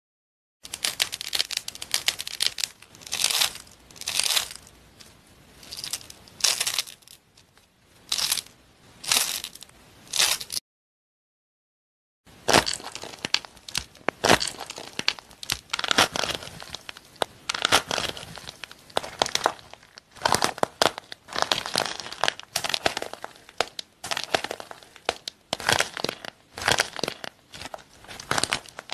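Hands squeezing and breaking apart a dry, crusty crumbly material, giving clusters of crackling crunches and crumbling. The crunching stops briefly about ten seconds in, then goes on at a busier pace.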